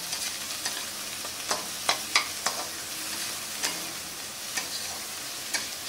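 Chopped onion and capsicum sizzling in butter in a stainless-steel kadhai, a steady hiss, with a spatula scraping and clicking against the pan at irregular moments as they are stirred and sautéed.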